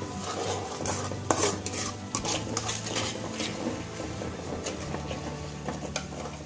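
Steel spoon stirring and scraping thick masala around an aluminium kadai, with repeated scrapes and clinks of metal on the pan over a light sizzle of frying oil, the sharpest clink about a second in. The masala is being roasted in oil.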